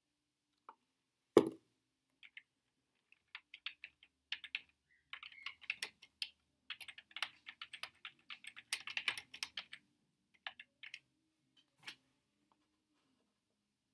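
Typing on a computer keyboard: irregular runs of quick key clicks, densest in the middle, with a single heavier knock about a second and a half in.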